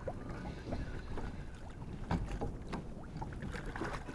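Wind buffeting the microphone over choppy water lapping and slapping against a kayak's hull, with a few sharper slaps a couple of seconds in.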